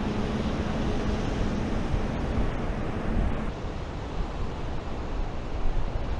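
Wind on the microphone and surf breaking on the beach, a steady rushing noise. A low steady hum in the first part cuts off about three and a half seconds in.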